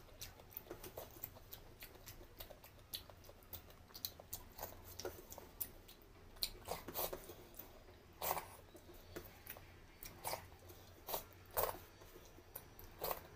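Fingers mixing and scooping soft khichdi on a stainless steel plate: an irregular scatter of small clicks and scrapes, with a few louder ones in the second half.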